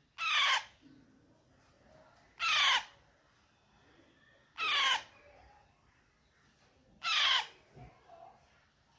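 Baby Alexandrine parrot calling loudly four times, about every two seconds; each call lasts about half a second and falls in pitch.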